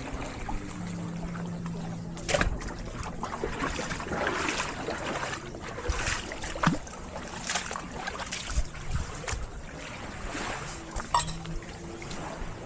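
Seaside ambience: water lapping and sloshing with scattered knocks and splashes, and a low steady hum at the start and again near the end.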